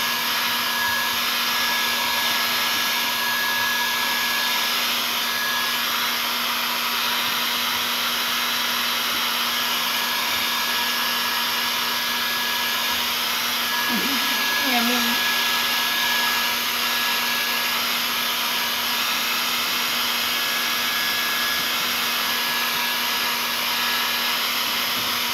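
Hand-held electric hair dryer blowing steadily, with a constant motor hum under the rush of air, as a bathed Persian cat's fur is dried. A short wavering cry is heard about fourteen seconds in.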